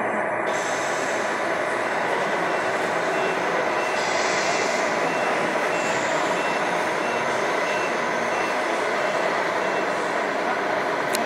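Reversing beeper of an RC model truck's sound unit, short high beeps about twice a second, starting a few seconds in and stopping near the end, over a steady background din.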